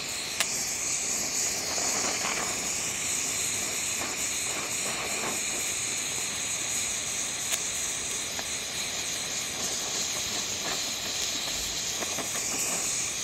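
Oxy-acetylene torch flame hissing steadily, held on steel while a filler rod is melted in for a gas weld. Two faint ticks, about half a second in and again midway.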